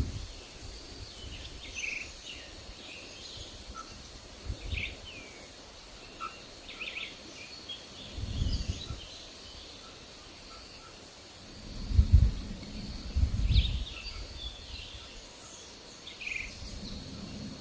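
Forest birds chirping in scattered short calls over a faint steady high tone, with several low rumbling gusts of wind on the microphone, the strongest about twelve seconds in and again shortly after.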